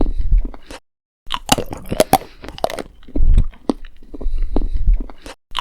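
Crisp food being bitten and chewed: loud, repeated crunches with a short break about a second in.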